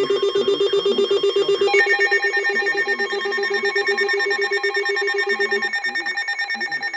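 Emergency-alert alarm tone: a warbling electronic sound of several steady pitches at once, pulsing about ten times a second. The pitches shift higher about two seconds in, and the low pitch drops out near the end.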